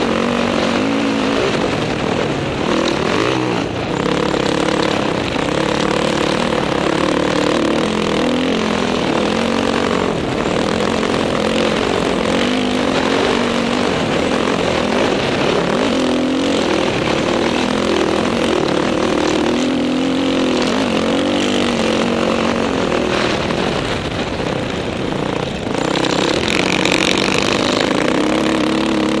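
Dirt bike engine running under changing throttle while riding over sand, its pitch rising and falling with the revs, with rushing wind noise on the onboard microphone.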